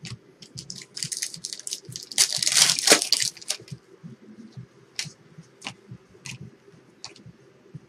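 Plastic-foil trading-card pack wrapper being torn and crinkled, loudest about two to three seconds in, followed by a few sharp light clicks and snaps of cards being handled.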